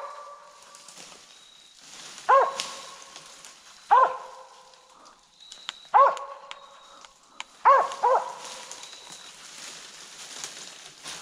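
Squirrel dog barking treed: single loud barks about every two seconds, two in quick succession near the end, the sign that she has a squirrel up the tree.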